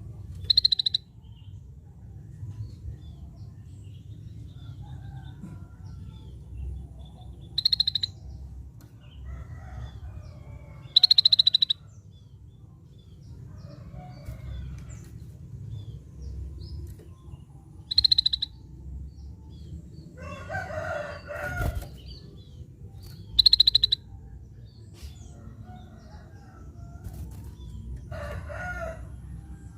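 Scaly-breasted bulbul giving five short, loud, buzzy calls spaced several seconds apart. A lower, rougher call breaks in twice, about two-thirds through and near the end, over faint chirping and a steady low hum.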